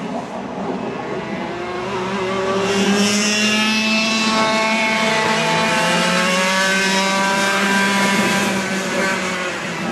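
125cc Parilla Leopard two-stroke kart engine at full throttle, its pitch climbing steadily as the kart accelerates. It grows louder about two seconds in and eases off near the end as the kart moves away.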